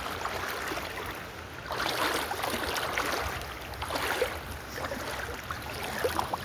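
River water splashing and sloshing, swelling in surges about every two seconds, with small sharp splashes in between.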